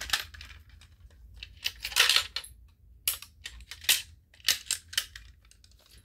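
Plastic clicks and rattles of an Edwards fire alarm pull station being handled and opened to reset it after a pull. The clicks come in four or five short clusters, the loudest about two seconds in.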